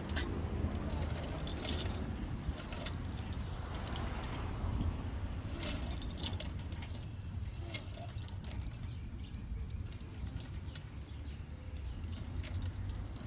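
Small metal parts clinking and clicking as they are handled, with a couple of sharper clicks about two and six seconds in, over a steady low rumble.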